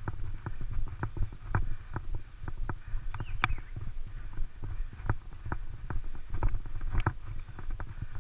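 Hoofbeats of a horse walking on a dirt road: uneven clopping knocks, about two to three a second, over a low rumble.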